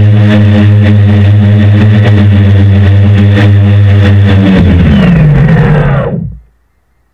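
Six brushless motors and 10-inch propellers of a hand-built DJI F550-style hexacopter humming steadily at hover. About four and a half seconds in they wind down together in pitch and stop about a second and a half later, as the copter sets down and its motors spool down.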